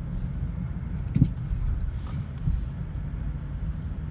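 Low, steady engine and road rumble inside a moving truck's cabin, with a sharp knock about a second in and a softer one a second later.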